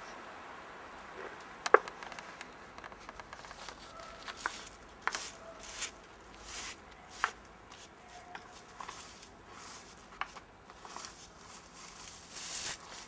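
Scattered sharp clicks and taps, the loudest about two seconds in, then a short rustling scrape near the end as a hand sweeps leaves off a stone grave slab.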